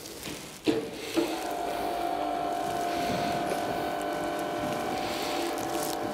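Overhead electric chain hoist running steadily with an even, humming tone as it lowers a heavy test weight. The hoist starts after a couple of clicks about a second in.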